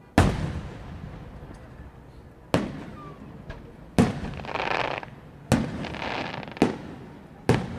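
Aerial fireworks shells bursting: six sharp booms a second or two apart, each with a rolling echo. A crackling hiss follows the third and fourth booms.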